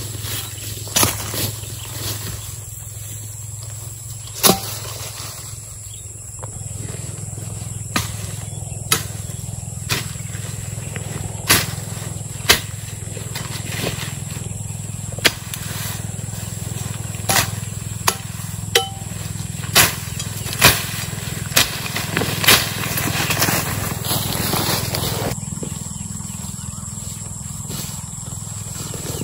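A person pushing through tall grass on foot: rustling, with sharp swishes and strikes at irregular intervals, about one a second, over a steady low hum.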